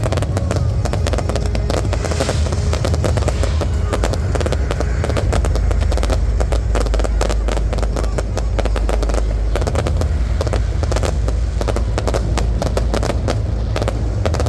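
Display fireworks going off in rapid succession, a dense crackle of many sharp reports over a steady low rumble.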